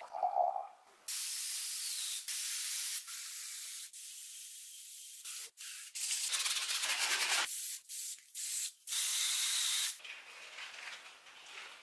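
Paint pouring briefly into the cup of a gravity-feed spray gun, then the spray gun hissing in a run of bursts a second or two long, with short breaks between them, as it sprays paint onto the welded scrap-metal table base.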